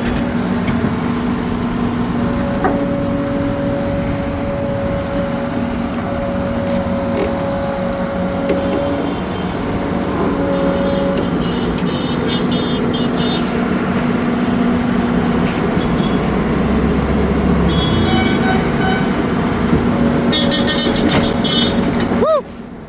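Busy road traffic in a jam: vehicle engines running with long held horn tones over a steady din.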